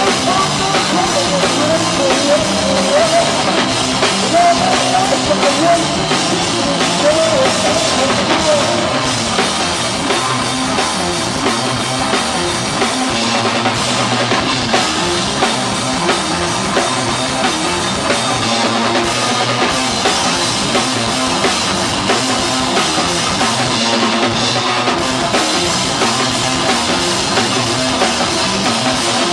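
Live doom metal band playing loud: drum kit with cymbals, bass and guitar, heard close to the drums.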